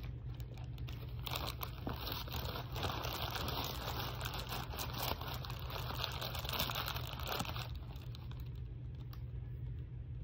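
Paper burger wrapper crinkling and rustling as it is handled, a dense crackle lasting about six seconds before it dies down, over a steady low hum.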